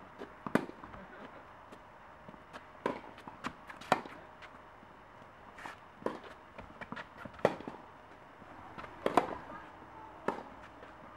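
Tennis rally: a racket strikes the ball with a sharp pop every second or two, with quieter ball bounces and footsteps between the hits.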